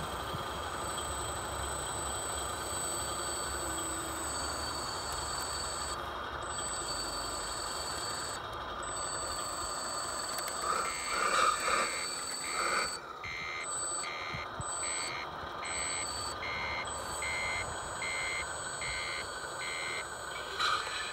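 Reversing beeper of an RC truck's sound module, beeping evenly about every three-quarters of a second through the second half, over a steady hiss and whine. A louder rise of sound comes about eleven seconds in, before the beeping starts.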